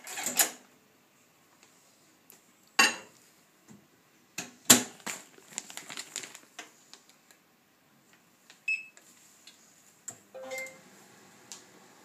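Sharp clunks and rustles of a bag of frozen raspberries being handled and scanned, a short high beep near nine seconds in, then another beep about ten seconds in as the microwave oven starts up and runs with a steady hum.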